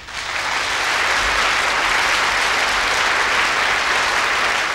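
Audience applauding steadily, a dense sustained clapping that swells in just as a sung duet finishes.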